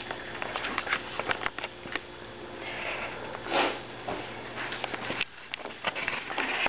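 Petite Golden puppies sniffing and padding over a paper sheet, with many light clicks and rustles of paws and claws on the paper. There is a louder sniff about three and a half seconds in.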